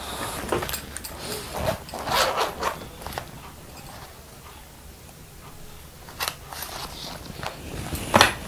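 Rustling and small clicks as a purse is handled and opened to take money out, in scattered bursts with a sharper click near the end.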